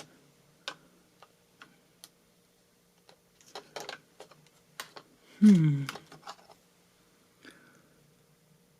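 Scattered small plastic clicks and taps as laptop parts are handled while a ribbon cable connector is being fitted back in. About five and a half seconds in there is a short, louder voice sound that falls in pitch.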